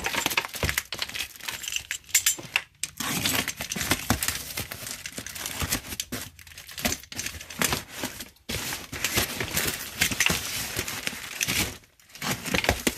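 Box cutter slicing through packing tape on a cardboard shipping box, with the cardboard flaps scraping and rustling as they are pried open. The noise comes and goes irregularly, with a few brief pauses.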